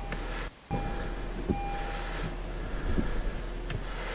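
Honda Civic windshield washers spraying fluid onto the glass and the wipers sweeping across it, with a hiss of spray, a steady whine and a few knocks from the wiper arms. The washers now spray properly after the nozzles were replaced.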